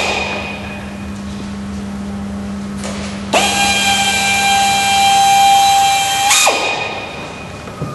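Power drill drilling out rivets in an aircraft's cabin door: a drill whine cuts off at the start, then a second steady whine runs for about three seconds from just under halfway in and stops abruptly.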